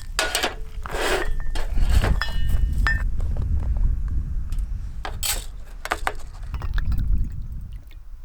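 Metal cookware and utensils clinking and knocking, with brief ringing a couple of seconds in, over a steady low rumble.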